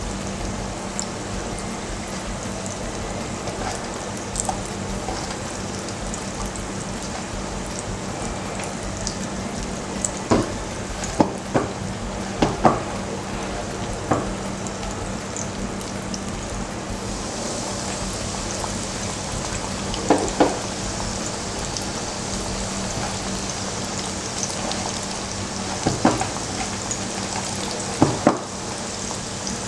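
Batter-coated chicken pieces deep-frying in hot oil, with a steady sizzle and occasional sharp clicks. The hiss turns brighter and louder from just past the middle.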